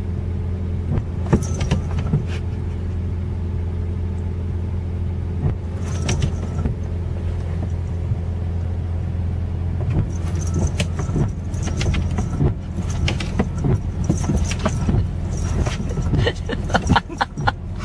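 Steady low hum of a car idling, heard from inside the cabin, while the windshield wipers sweep the wet glass. Scattered light clicks and taps come through, growing frequent in the second half.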